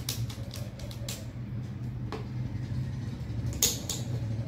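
Small golden decorative stones dropped by hand into a glass jug, clinking against the glass a few times, the loudest clink about three and a half seconds in. A steady low hum runs underneath.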